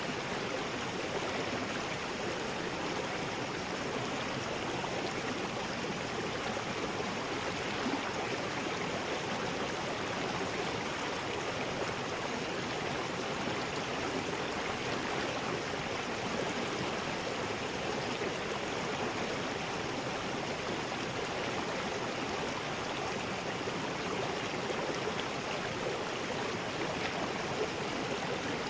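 River rapids: water rushing steadily over rocks in an unbroken wash of noise.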